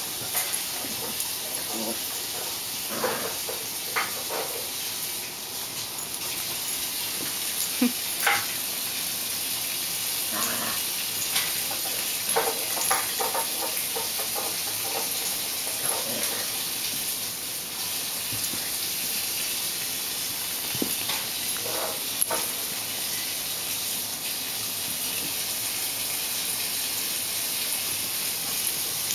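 An Italian Greyhound and a Bengal cat play-fighting on carpet: scattered short animal noises and scuffles, with a few brief calls, over a steady hiss.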